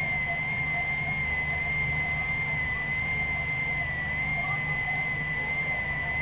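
Steady background hum and hiss with a thin, slightly wavering high whine held throughout: the noise floor of an old recording in a pause between recited verses.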